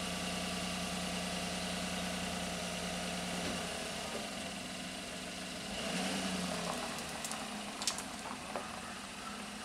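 Chevrolet Silverado pickup engine idling steadily, then changing note a few seconds in as the truck starts to pull away slowly. A few sharp clicks come near the end.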